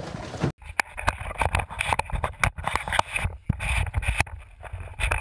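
Rapid, irregular knocks and rattles on a fishing boat, picked up by a camera mounted on the boat's side, over a low rumble. About half a second in, wind noise on the microphone stops abruptly.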